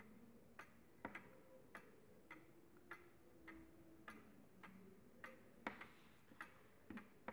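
1882 Ansonia wall clock movement ticking faintly and evenly, about two ticks a second. The even tick-tock shows the clock is in beat, hung true so the pendulum swings evenly.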